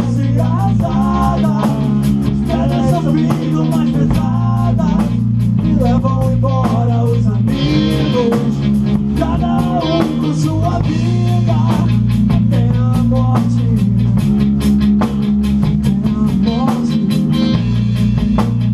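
A rock band playing live: electric guitar through Marshall amplifiers, a drum kit keeping a fast steady beat, and a man singing over them.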